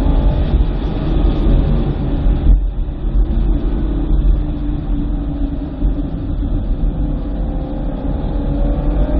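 2009 BMW M3's 4.0-litre V8 driving at track pace. The engine note sags for the first couple of seconds, turns abruptly softer and duller about two and a half seconds in, holds steady, then starts to climb again near the end as the car accelerates.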